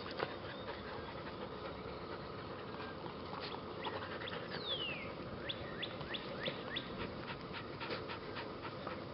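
Puppy panting close by, over many short high chirps and one falling whistle-like glide about halfway through.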